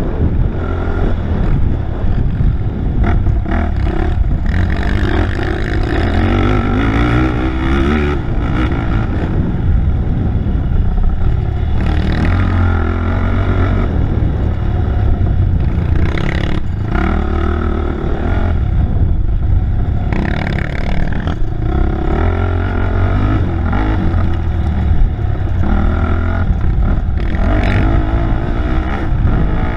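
Racing ATV engine running hard and close, its pitch rising and falling several times as the throttle opens and closes, with sharp knocks and clatter from the rough dirt track.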